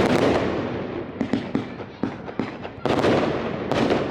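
Fireworks going off: a loud burst at the start, then a run of sharp crackles and pops, and two more loud bursts near the end, each trailing into crackling.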